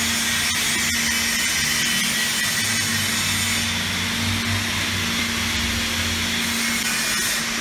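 Steady mechanical running noise, a hiss over a constant low hum, with no change in level.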